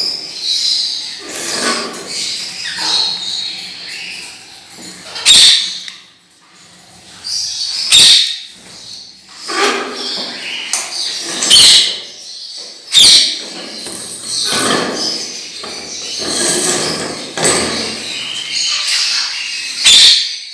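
Pet parrots chirping and squawking, with several sharp knocks in between.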